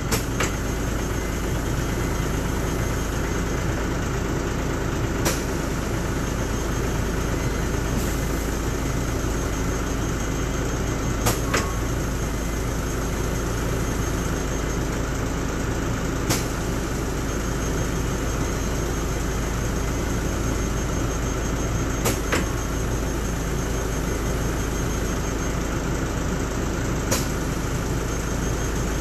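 A bus engine idling steadily. Short sharp clicks and knocks sound every few seconds, about eight or nine in all, from the pneumatic air-operated folding door and its fittings as it is worked.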